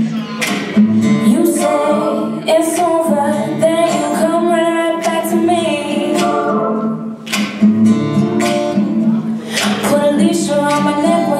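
A swing jazz song with a singer, played for the dancers.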